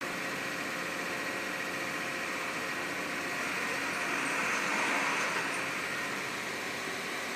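Steady mechanical drone, swelling slightly about four to five seconds in.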